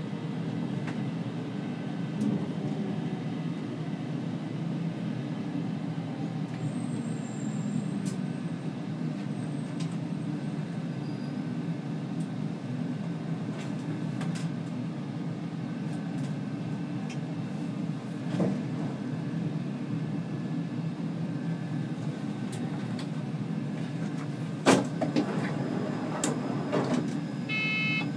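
Stockholm C20 metro train running, a steady low rumble, with scattered clicks, a sharp knock about 25 seconds in and a short burst of high tones near the end.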